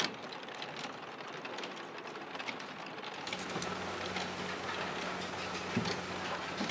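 Tile-factory machinery: irregular mechanical clicks and rattles over a noisy background. About three seconds in, a steady low hum joins them.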